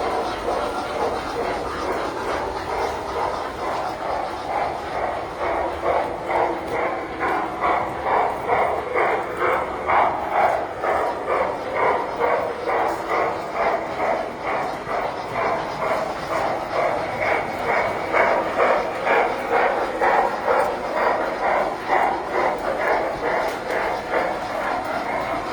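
Tinplate model trains running on the layout's track: a steady rolling rumble with an even rhythmic beat of about three a second, which grows louder a few seconds in.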